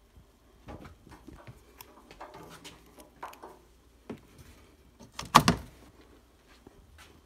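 Handling noises: an electrical cord and plug being moved about, with scattered clicks and rustles and one loud knock about five seconds in.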